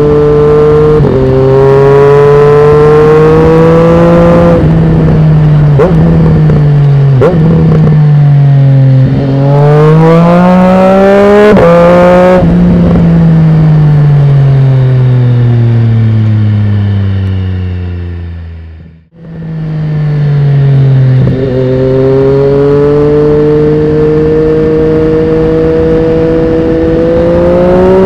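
Triumph Street Triple 765 RS's 765 cc inline three-cylinder engine breathing through a Dominator aftermarket silencer, ridden hard. It revs up through the gears with several quick upshifts, each a sudden drop in pitch. Then a long falling deceleration fades almost to nothing, and a fresh acceleration climbs steadily through the second half.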